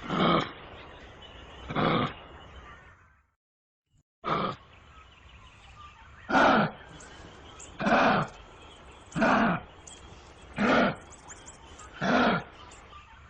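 Kangaroo giving short, harsh calls, about eight of them, repeated every second and a half or so. A brief silent break comes about three seconds in.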